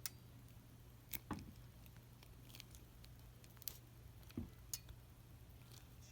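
Hand wire strippers clicking and snipping at the insulation of a stranded copper wire: a scattered handful of sharp, faint clicks, two of them with a dull knock, about a second in and again near the middle.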